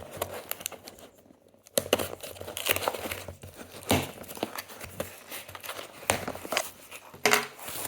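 A knife slitting open a shipping package, and the packaging crinkling and tearing as it is pulled apart, in irregular crackles and clicks. There is a brief lull about a second in, then a louder tearing scrape near the end.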